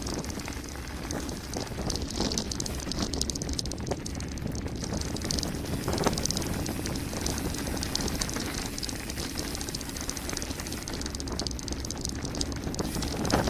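Mountain bike descending a gravel forest road: tyres crunching over loose gravel, with steady rattling from the bike and a sharper knock about six seconds in.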